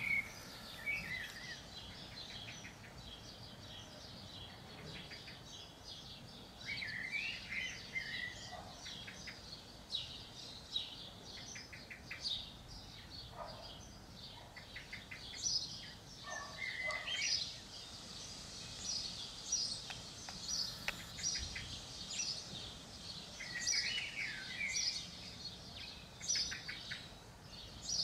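Garden songbirds chirping and calling: many short high chirps throughout, a few lower warbling phrases, and a quick rattling run of notes about halfway through.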